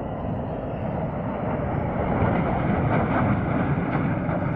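Military aircraft flying over, a rushing engine noise that swells to its loudest about two to three seconds in and then eases slightly.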